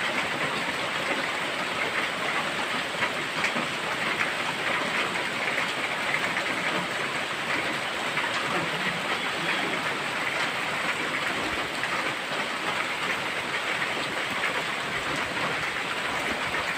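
Steady rushing and pattering of water, an even hiss with no breaks.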